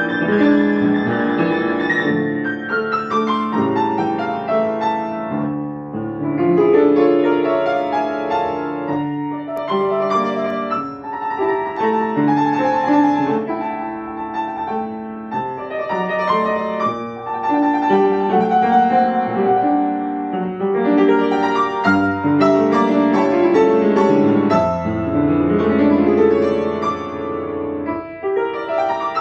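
A grand piano played solo: a classical piece, with melody lines over sustained chords and phrases that swell and ease.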